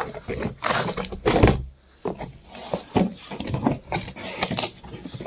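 Cardboard box flaps being pulled open and handled: irregular rustling and scraping of cardboard with short knocks and taps, pausing briefly about two seconds in.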